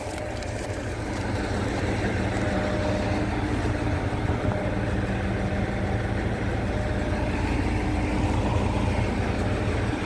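A vehicle engine idling steadily, a low even hum with no change in speed.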